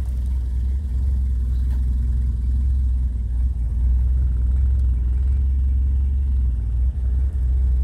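Rover 2000 TC's twin-carburettor four-cylinder engine idling steadily, a low even hum, shortly after a cold start.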